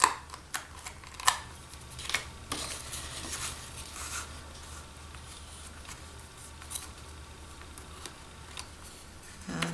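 Light clicks and taps of fingers handling a white plastic coffee-cup lid and small paper and foam-adhesive pieces: about five sharp clicks in the first two and a half seconds, then faint handling over a steady low hum.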